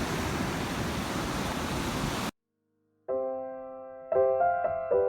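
A steady rush of ocean surf and wind that cuts off abruptly a little over two seconds in. After a short silence, solo piano music begins, with sustained chords struck about once a second.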